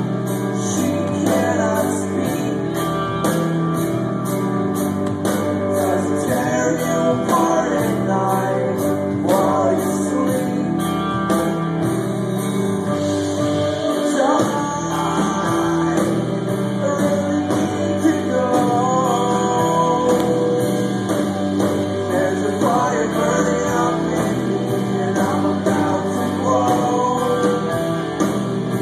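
A live rock band playing: distorted electric guitars, bass and a drum kit with steady cymbal hits, and a sung vocal line over the top.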